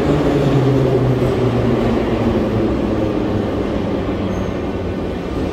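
Moscow Metro 81-717.5/714.5 'Nomernoy' train running along the platform, its low hum falling slowly in pitch and easing off in loudness as it slows.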